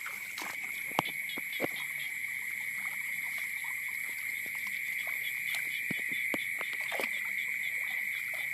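Night chorus of frogs and insects around a flooded paddy pit: a steady, high-pitched shimmer, broken by a few sharp clicks and water sloshing as hands work a fishing net in the shallows.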